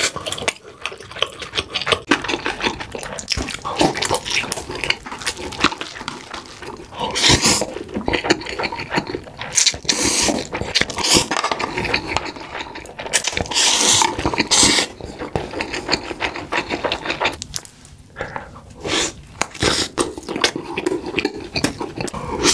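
Close-miked eating sounds: wet chewing and smacking of a steamed dumpling and noodles, with several long slurps in the middle as noodles are sucked up.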